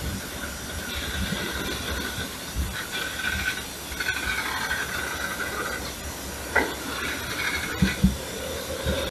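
Freight train of tank cars rolling slowly past as it picks up speed again after a stop: a steady rumble and hiss of wheels on the rails, with thin high whining tones that come and go. It sounds muffled, as through a waterproof case, with two short knocks near the end.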